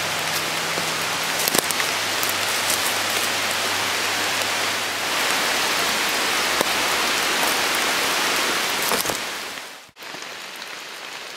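Steady rain falling through forest foliage, with scattered sharper drop hits. About ten seconds in it cuts off abruptly and quieter rain dripping onto a puddle follows.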